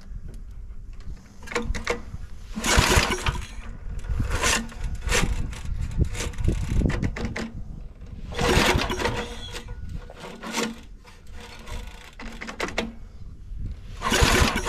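Recoil pull-starter of a 1965 Rover Ranger ride-on mower's 8 HP engine being yanked several times. Each pull gives a loud rasping burst over the rough turning of the engine, and it cranks without firing.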